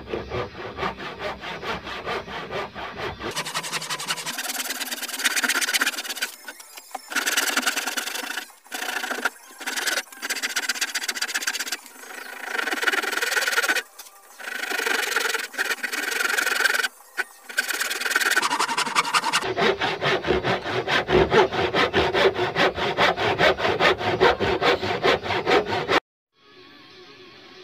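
Hand saw cutting dovetails into a wooden board held upright in a vise, with rapid back-and-forth rasping strokes and a few short pauses between cuts. The sawing stops about a second and a half before the end, leaving only a faint steady background.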